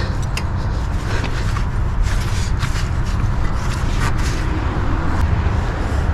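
Scattered light clicks and scrapes of hand work on a car's front suspension over a steady low rumble.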